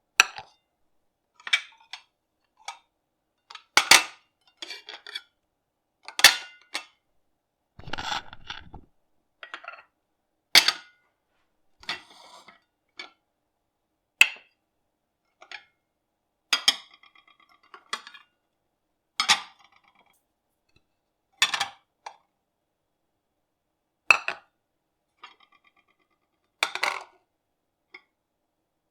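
Dishes being picked up and set down, a separate sharp clink or clatter of crockery every second or few, some of them ringing briefly.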